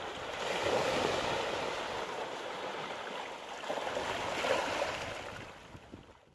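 Sea waves at high tide washing and breaking on the shore, surging twice, then fading out near the end.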